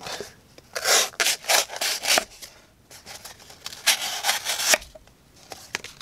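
Folding knife's coated D2 blade sawing through damp corrugated cardboard in short back-and-forth strokes: a run of strokes about a second in, and a shorter run around four seconds in.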